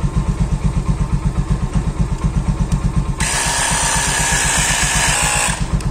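Yamaha FZ-S V3's 150cc single-cylinder engine idling in neutral with an even, quick pulse. About three seconds in, a loud steady hiss starts, most likely the 12 V tyre inflator pumping air into the tyre, and it cuts off after about two seconds.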